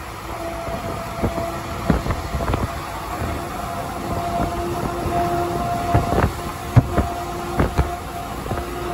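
Road noise inside a moving vehicle on an interstate: a steady rumble with a faint hum that comes and goes, and irregular knocks and thumps, louder in the second half.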